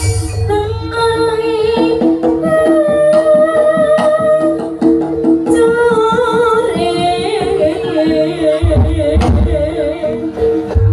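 Jaranan music: a singing voice over sustained gamelan gong-chime tones and regular drum beats.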